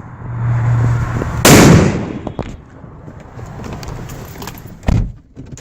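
Large firecracker going off with a single loud bang about a second and a half in, dying away over the next second. A shorter thump follows near the end.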